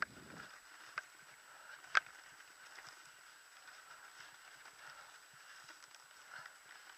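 Mountain bike rolling over a bumpy grass-and-dirt trail: a steady rush of tyres and wind, with three sharp knocks of the bike jolting over bumps in the first two seconds, the loudest about two seconds in.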